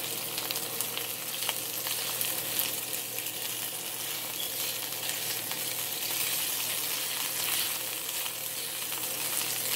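Shrimp, sliced onions and bell peppers sizzling in oil in a hot nonstick frying pan: a steady high hiss with faint scattered ticks.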